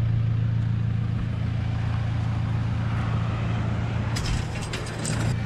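Toyota Hilux engine idling steadily, with a cluster of sharp metallic clinks and rattles near the end as a steel farm gate is handled.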